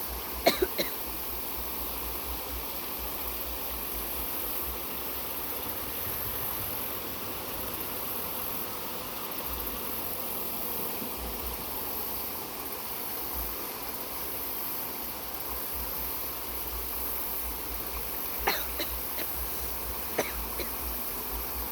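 Steady outdoor hiss of flowing water, with wind buffeting the microphone and a few short clicks about half a second in and near the end.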